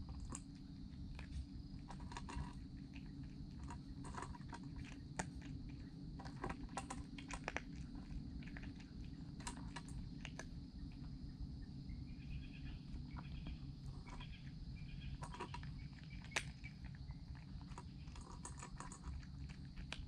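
A cat eating from a stainless steel bowl: irregular crisp crunches and clicks as it chews its food, over a steady high tone in the background.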